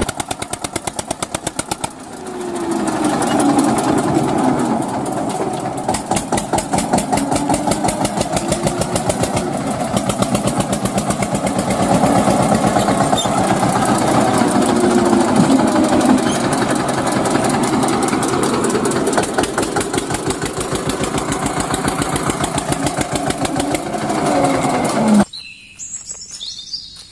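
Engine running with a fast, even putter that cuts off suddenly near the end.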